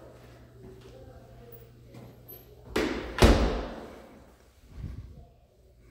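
Closet door being pushed shut, landing with one solid thump about three seconds in, followed by a smaller knock a little later.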